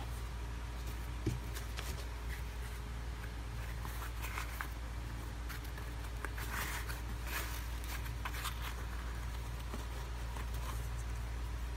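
Soft rustling and light clicks of a knit Yeezy Boost 350 sneaker being flexed and turned in the hands, with one sharp knock about a second in, over a steady low hum.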